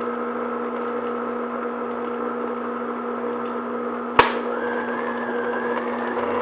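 Stand mixer motor running steadily with a constant hum as its flat beater mixes cake batter in a glass bowl. One sharp click about four seconds in.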